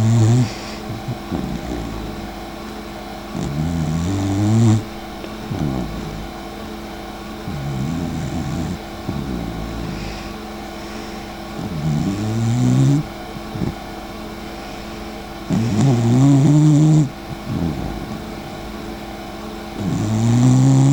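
Dachshund snoring in its sleep: a snore roughly every four seconds, each about a second long and rising in pitch.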